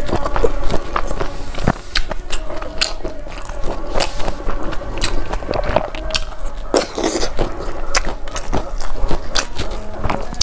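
Close-miked eating: fingers mixing rice, then chewing a mouthful of rice and chicken with many sharp mouth clicks.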